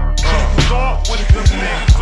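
Slowed-down hip hop track: a rapping voice, pitched down, over a heavy bass line and a drum beat.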